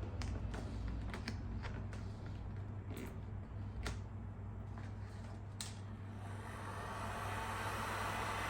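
Small sharp clicks and crackles of vinyl decal film being lifted and pressed onto a plastic motorcycle fairing. About six seconds in, a heat gun starts blowing: a steady rushing noise that grows and holds, used to soften the vinyl and work out creases.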